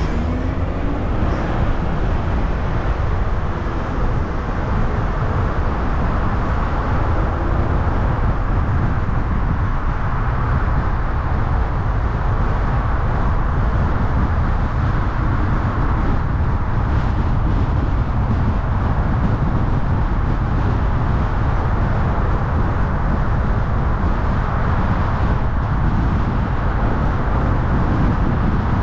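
Steady road noise of a car driving along: a low tyre and engine rumble that holds even throughout.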